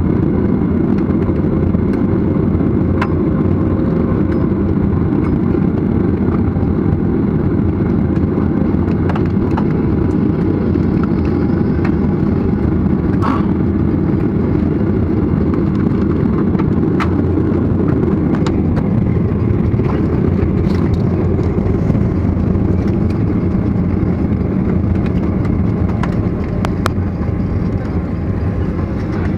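Jet airliner's engines and airframe during taxi, heard inside the cabin as a steady low rumble, with a few faint clicks.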